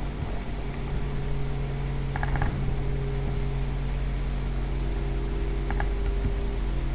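Computer mouse clicks: a quick double-click about two seconds in and another near the end, over a steady low hum.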